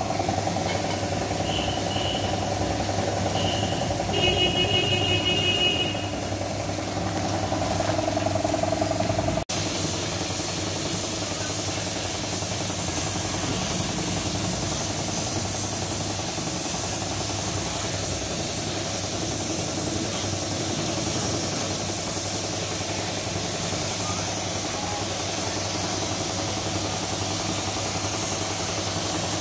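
Compressed-air spray gun hissing steadily as it sprays yellow paint onto a tractor wheel rim, over a constant low mechanical hum.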